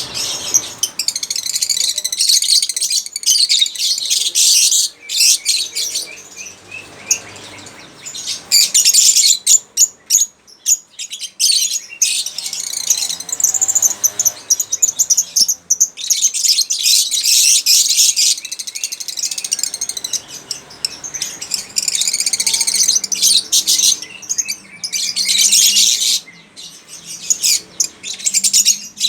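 Lovebird chattering: rapid, high-pitched chirps and twitters in long bouts broken by short pauses.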